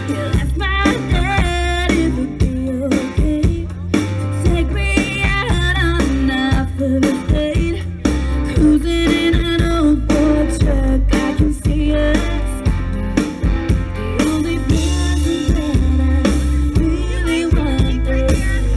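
Live country band playing: a woman singing lead into a microphone over a drum kit and guitar, amplified through the stage sound system.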